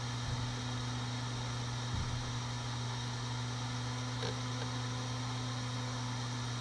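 Seagate Barracuda 7200.10 ST3250310AS 3.5-inch hard drive spinning with a steady hum, with a few faint ticks from its heads seeking.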